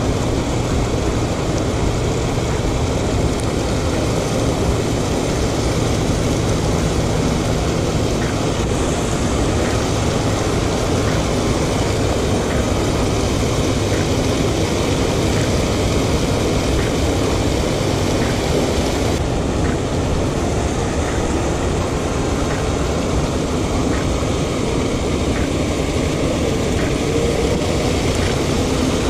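Water pouring over a low concrete spillway weir, a loud steady rush of whitewater.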